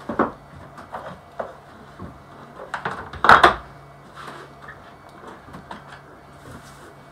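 A hardboard backing sheet handled and set down on a mat-cutting table: a few light knocks and one louder clatter about three seconds in.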